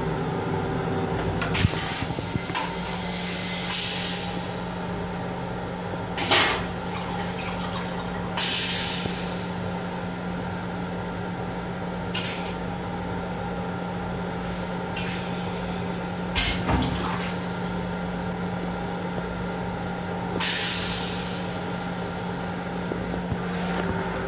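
Steady hum of an LIRR M7 electric railcar heard inside its restroom, broken every few seconds by short hissing bursts.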